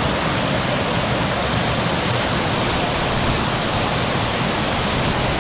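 Steady rushing of flowing water, an even hiss with no distinct splashes or knocks.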